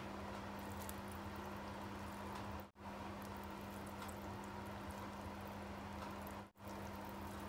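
Faint wet handling sounds of soft cooked rice noodles being gathered into bundles by hand, with small clicks, over a steady low hum. The sound drops out briefly twice.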